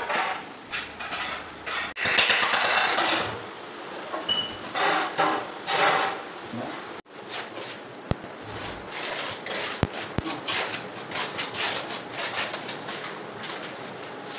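Irregular scraping and knocking of hand tools on a cement kitchen counter base, with clinks, during countertop masonry work.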